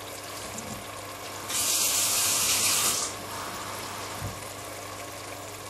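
Water poured out in one gush lasting about a second and a half, over a steady background hum; water is being measured into the pot for the trahanas soup.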